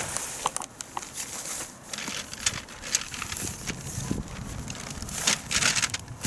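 Tent fabric rustling and crinkling in irregular bursts as a large tent is pulled out of its carry bag and unfolded on grass.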